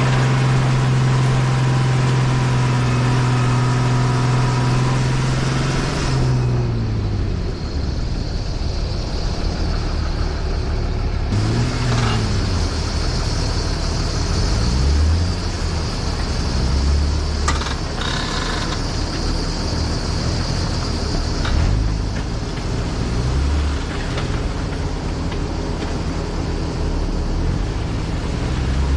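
Jeep engine running under steady load for about six seconds, then the revs drop with a falling pitch, followed by lower, uneven engine running and a couple of short clicks.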